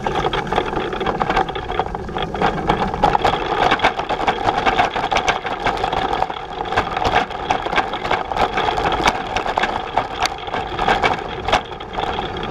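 Cargo bike rolling down a rough dirt forest trail, its frame and front cargo box rattling with frequent clicks and knocks over the bumps, over a steady mid-pitched hum.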